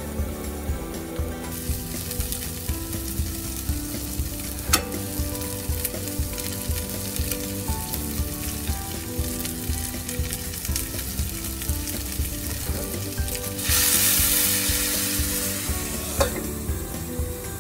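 Meat patties sizzling in oil in a nonstick frying pan. About fourteen seconds in, liquid goes into the hot pan and the sizzling turns into a much louder hiss for a couple of seconds, sending up steam. The hiss ends with a knock as the lid is set on.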